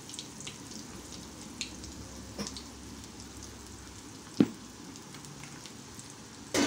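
Chakli dough frying in hot oil, pressed straight into the pan from a steel chakli press: a steady sizzle scattered with small pops. A single sharp knock comes about four seconds in.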